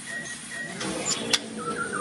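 White-rumped shama (murai batu) birdsong in a quieter passage between phrases: thin whistled notes, a brief high note and a sharp tick about a second in, over soft low notes.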